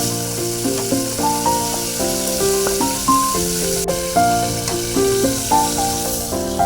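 Background instrumental music with a plucked-style melody of stepped notes, over a steady sizzling hiss of food frying in a hot pan that eases off near the end.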